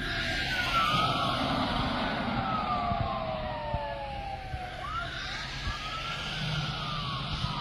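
Police car sirens wailing, several at once, overlapping, each slowly rising and falling in pitch, with a fresh rise about five seconds in.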